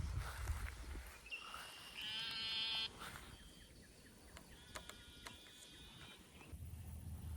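Faint bleat-like animal calls, the loudest lasting just under a second about two seconds in, with a weaker call later.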